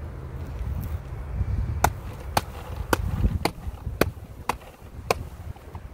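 Sharp, evenly spaced knocks, about two a second, starting about two seconds in: a gloved hand rapping a wooden hive frame to knock the bees off the comb.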